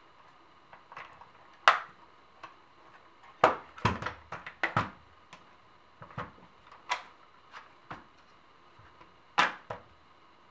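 Irregular sharp clicks and knocks of polymer and metal rifle parts as an IWI Tavor is handled and put back together around its charging handle and top rail. The loudest knocks come about 2 and 3.5 seconds in, with another strong one near the end.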